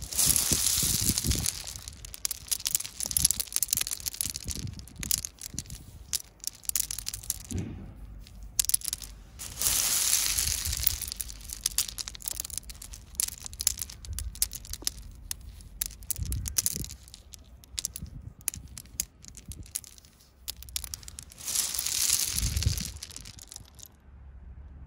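Coarse quartz gravel being dug into and handled by hand: pebbles clattering and clicking against one another, with three longer rushes of stones sliding and pouring.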